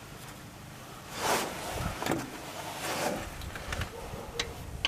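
New stiff foam lower control arm bumper being pushed by hand into the metal tangs of its mount: three short rubbing, squeaking scrapes about a second apart, then a few light clicks near the end.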